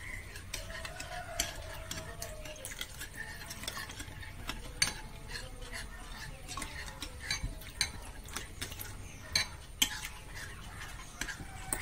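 A spoon stirring passion fruit pulp with sugar and lime juice in a glass bowl, scraping and clinking irregularly against the glass, with a few sharper clinks.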